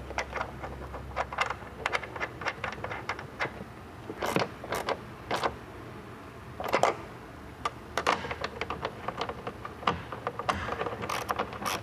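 Ratchet with a 10mm deep socket clicking in runs of sharp ticks while tightening the nuts that hold a tail light onto its studs, with a few louder clacks in between.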